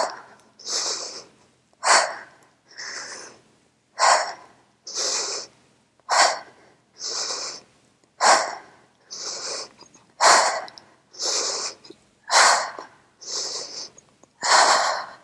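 A woman breathing hard in time with one-legged dumbbell rows: a sharp, loud puff of breath about every two seconds, eight in all, each followed by a softer, longer breath.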